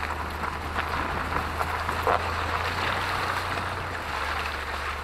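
Tyres of a Mitsubishi Pajero V60 rolling slowly over wet gravel: a steady crunching and popping of stones with wet splashing, over a low steady rumble. There is a louder burst about two seconds in.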